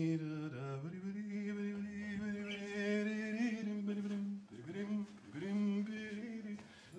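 A man singing a wordless tune on nonsense syllables, holding long notes with a few sliding rises in pitch.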